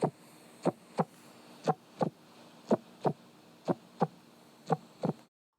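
Heartbeat sound effect: paired lub-dub thumps, about one beat a second, over a faint steady hum, stopping abruptly near the end.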